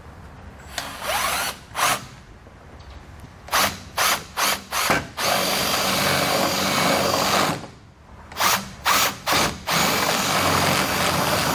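Cordless drill boring holes through a truck's rear bumper, triggered in short bursts with two longer runs of a couple of seconds each.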